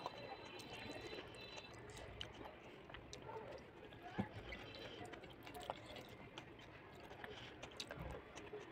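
Faint eating sounds: fingers mixing cooked rice on a plate, with many small, soft clicks and moist smacks.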